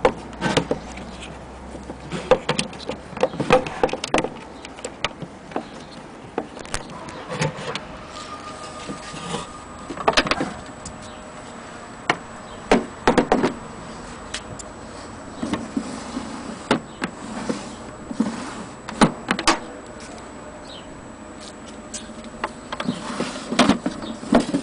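Irregular clicks and knocks from handling the wooden case of a Singer 12K hand-crank sewing machine: a key working in the cover's lock and wood knocking on wood.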